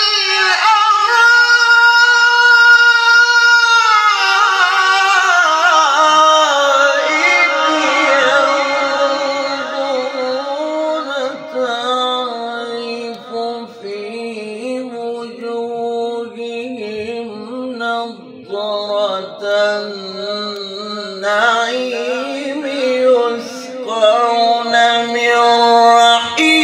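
A male Quran reciter chanting in melodic tajweed style, solo. He holds a long high note for the first few seconds, lets it fall lower, then goes on in shorter ornamented phrases.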